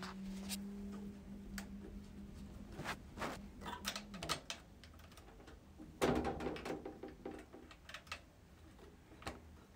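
Sansui 800 solid-state receiver being tuned by hand: a steady low tone that slides down in pitch and stops about four seconds in, with light clicks throughout. A short, louder burst of sound comes about six seconds in.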